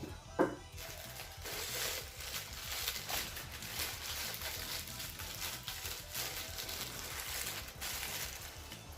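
A single knock about half a second in, then paper and cardboard packaging rustling and crinkling for several seconds as the first part of a collector's toy box is opened and its paper sleeve handled.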